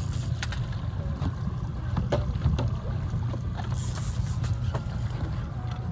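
Fishing boat's engine running at trolling speed, a steady low rumble, with a few light knocks scattered through it.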